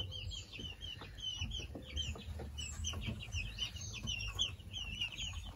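A flock of young chicks peeping: a steady stream of short, high cheeps, several a second, overlapping one another.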